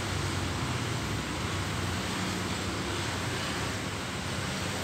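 Steady outdoor background noise: an even hiss with a low hum underneath, unchanging throughout.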